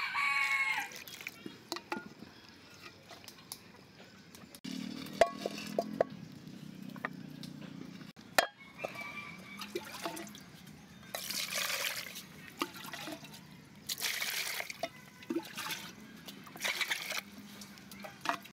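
Water sloshing and splashing around a large sea snail shell in a pot, in several short bursts. A rooster crows briefly in the first second.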